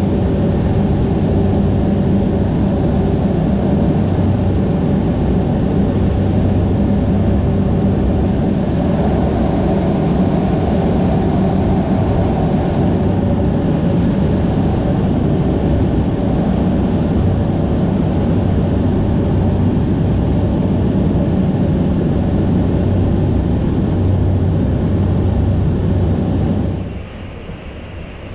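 Loud, steady cabin drone of a Cessna Grand Caravan's single turboprop engine and propeller during the descent, a constant hum with low steady tones under a wash of noise. About a second before the end the sound drops abruptly to a much quieter level.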